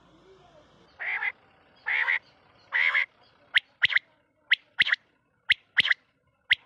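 Quail calling: three harsh, rasping notes about a second apart, then a sharp three-note 'whit wit-wit' phrase repeated about once a second.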